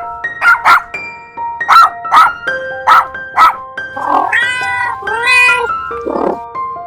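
A domestic animal calling over background music: a run of short sharp calls, mostly in pairs, then two longer drawn-out calls with bending pitch about two-thirds of the way through, and one more short call near the end.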